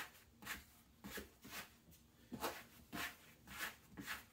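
Plastic bench scraper scraping across a floured wooden counter under a round of sourdough dough, in short faint strokes about every half second.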